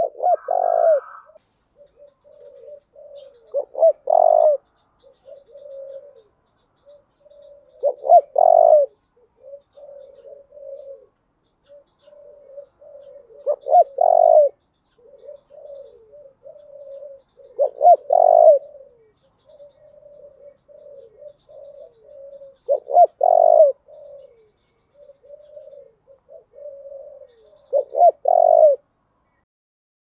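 Spotted dove cooing: a loud coo phrase about every four to five seconds, seven in all, with softer low coos between them.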